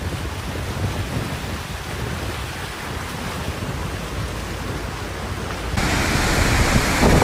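Flash-flood water rushing down a street, a steady rushing noise with wind rumbling on the microphone. Near the end it becomes suddenly louder and harsher, a more violent torrent.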